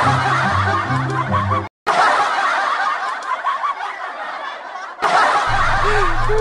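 Many overlapping snickering laughs, a comedy laughter sound effect, over background music with a steady bass line. The sound cuts out for an instant just under two seconds in, and the laughter goes on without the bass until the bass comes back near the end.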